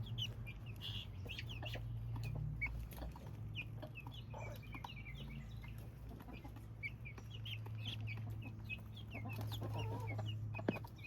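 Guinea keets peeping in many short, high chirps throughout, with the mother hen clucking near the end, over a steady low hum.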